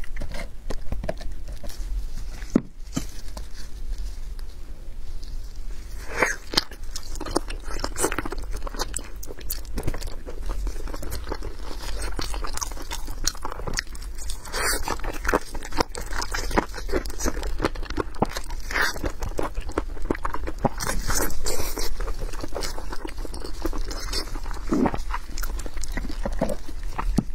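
Close-miked eating of braised pork: a cleaver cutting into the chili-coated meat, then wet biting and chewing with lip smacks, heard as many short irregular clicks and crackles over a low hum.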